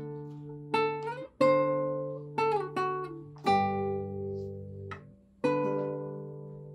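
Acoustic guitar playing a slow hymn accompaniment, with chords struck about once a second and each left to ring and fade; the last chord rings on for about two seconds.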